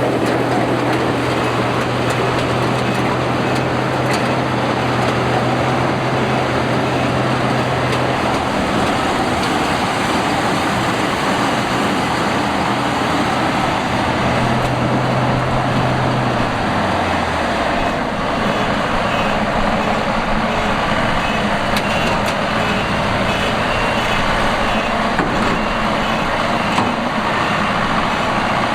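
Combine harvester running under load, a loud steady machine noise over a low engine note. About sixteen seconds in, the engine note falls and then settles lower.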